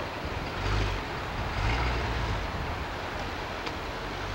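Red vintage hot-rod sedan pulling away slowly, its exhaust a low rumble that swells twice, about a second in and again around two seconds in.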